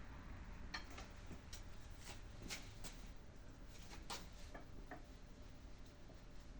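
Faint, irregular light clicks and taps of a kitchen utensil on a plate, about a dozen spread over several seconds, while Nutella is spread on a waffle.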